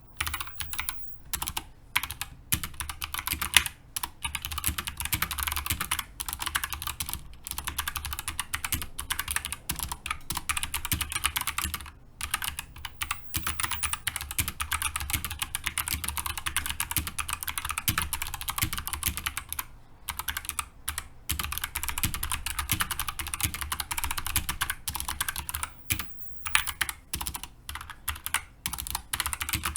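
Mechanical keyboard with clicky Kailh Jade switches being typed on at a steady pace: a dense run of sharp key clicks with a few brief pauses.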